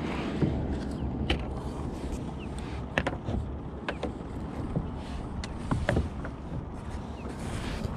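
Water and wind noise around a plastic sit-on-top kayak, broken by a few sharp knocks and clicks as gear is handled and the hull is bumped.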